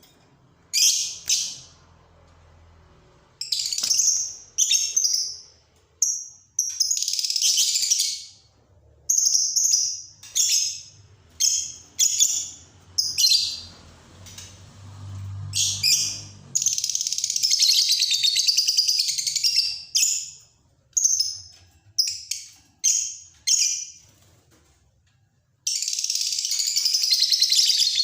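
A caged contest songbird singing loud, varied phrases with short pauses between them, breaking into long rapid trills twice, once for several seconds just past the middle and again near the end.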